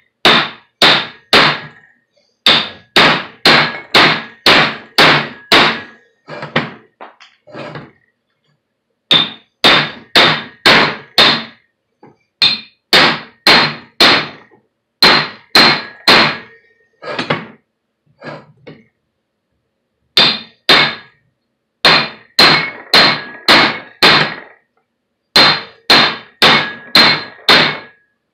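Hammer blows on the steel yoke of a drive shaft's CV joint, each with a metallic ring. They come about two a second in runs of several, broken by short pauses. The hammering is driving a stubborn bearing cap out of the yoke.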